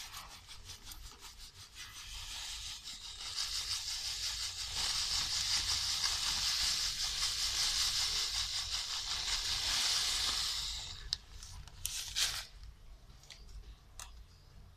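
Sand pouring from a plastic bag into a metal can of soil: a steady hiss that builds over the first few seconds and stops about eleven seconds in. A few light clicks and rustles follow.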